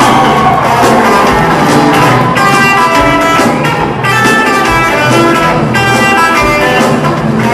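Live rock band playing loud: distorted electric guitar over a drum kit, with a kick drum thudding every second or two, recorded from within the audience.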